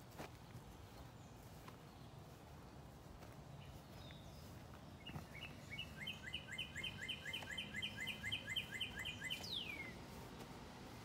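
A songbird singing a fast run of repeated chirping notes, about five a second, for roughly four seconds, ending in a single falling note. A steady low rumble of background noise runs underneath.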